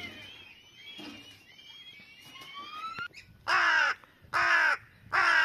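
A crow cawing three times in the second half, loud harsh calls under half a second each, coming about a second apart.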